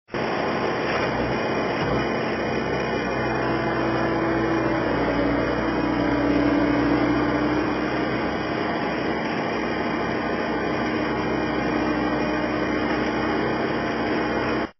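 A skid steer loader's engine running steadily, with a whine that changes pitch and grows a little louder about five seconds in. It starts and cuts off abruptly.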